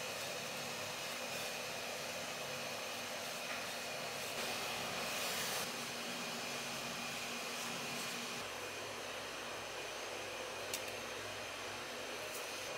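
Steady whooshing hum of a fan or motor in a commercial kitchen, even throughout with a faint low hum that drops away a little past halfway.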